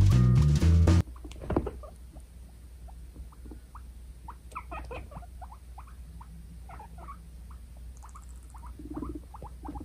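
Background music cuts off about a second in, leaving two guinea pigs' aggressive teeth chattering: a string of short, irregular clicks and squeaks, the loudest about a second and a half in. A brief low rumble from one of them comes near the end, part of the dominance display.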